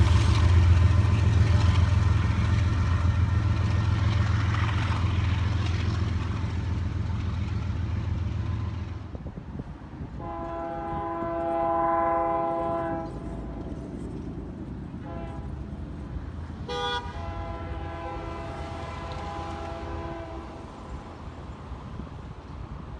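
A freight train rumbles past with its locomotives running, then cuts off. A locomotive's Nathan K3L three-chime air horn then sounds a long blast, two short blasts and another long blast, a grade-crossing-style sequence.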